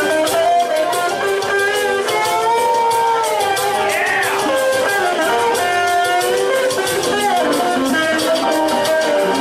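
Live electric guitar taking the lead over a rock and roll band with a steady beat, including a note bent up and back down about four seconds in.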